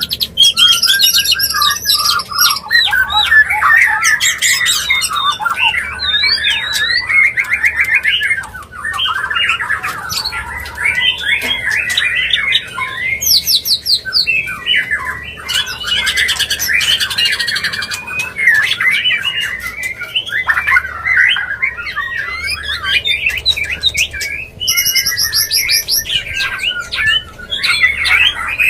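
White-rumped shama (murai batu) calling without a break: a dense run of varied whistled notes and rapid trills mixed with harsh, rattling squawks. This is the shama's breeding call, used as a lure to bring shamas into mating condition.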